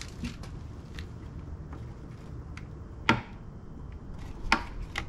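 Sharp plastic clicks and small ticks from hands working the fittings of a car's coolant expansion tank. The two loudest clicks come about three seconds and four and a half seconds in, over a low steady background.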